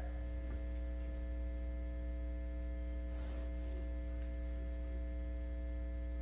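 Steady electrical mains hum: a low, even drone with fainter steady overtones above it. A faint brief rustle comes about three seconds in.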